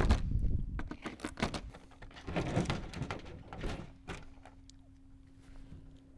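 Knocks and thunks of a Cirrus SR22's top engine cowling being handled as its half-turn cam-lock fasteners are released: a dense cluster of knocks in the first second, then scattered lighter knocks that thin out after about four seconds.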